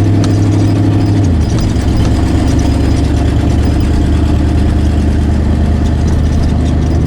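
Truck engine running steadily while driving; its pitch drops about a second in, then holds steady.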